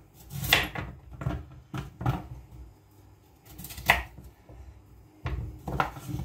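Kitchen knife cutting a large peeled carrot into pieces on a wooden cutting board: a series of irregular knocks and clunks of the blade going through the carrot onto the wood, the sharpest about four seconds in, with pieces set down in a wooden bowl near the end.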